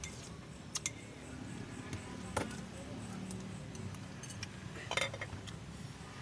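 A metal spoon clinking a few separate times against a ceramic bowl, over a low steady background murmur.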